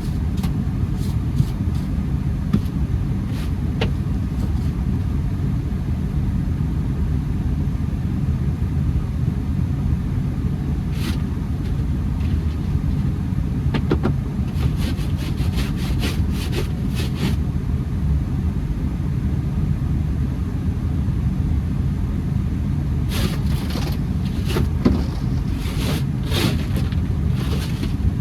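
Honda Accord running with a steady low rumble. Scattered short clicks and ticks come over it, more of them in the second half.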